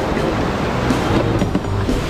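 Background music over the rush of breaking surf.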